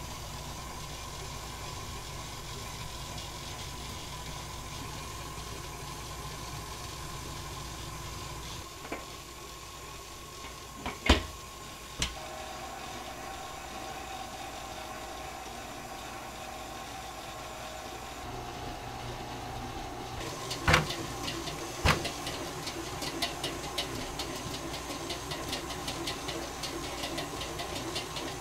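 Steady hum of kitchen machinery in a doughnut shop, with a few sharp knocks of utensils or equipment and, in the last third, rapid light crackling.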